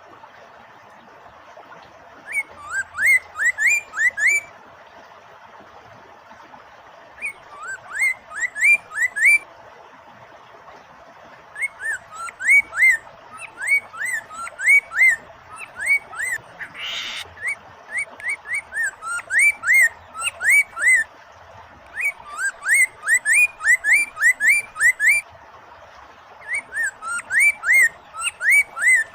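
Poksay mandarin singing in repeated phrases of quick rising whistled notes, several a second, with short pauses between phrases, over a steady rush of flowing water. A brief harsh rasp comes in about midway.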